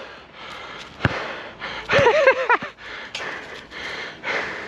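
A man panting hard from exertion, slow heavy breaths in and out, with a short voiced gasping outburst about two seconds in and a single knock about a second in.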